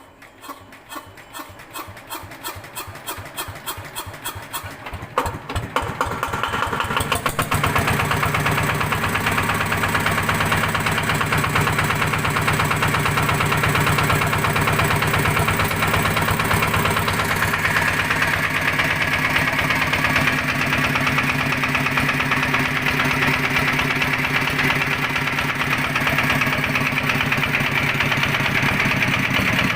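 Yanmar TF105 L single-cylinder diesel engine starting up: slow, separate beats grow louder and closer together over the first seven seconds or so, then it runs steadily at idle without stalling. Its repeated 'tok-tok' knock is one the owner finds strange and is unsure is normal.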